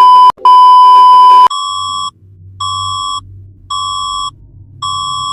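Emergency-alert tones: two long, loud, distorted tones around 1 kHz, then from about a second and a half in a steady series of electronic beeps, roughly one a second, over a low hum.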